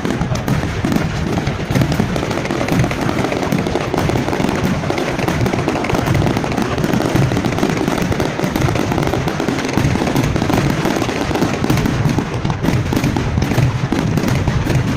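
Aerial fireworks going off in a dense, continuous volley of bursts and crackles, with no let-up.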